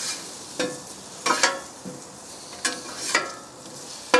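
Boiled potatoes sizzling in fat on a hot grill plancha, with several short ringing clinks of a metal utensil against the pan as they are turned and seasoned.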